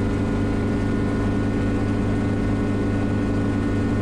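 Schweizer 300CB helicopter in flight: the steady drone of its piston engine and rotors, heard from inside the cabin, an even hum made of several steady tones.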